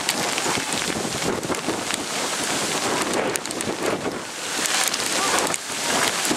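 Steady hiss of rain falling on woodland with wind buffeting the microphone, mixed with the footfalls of runners passing on wet leaf litter.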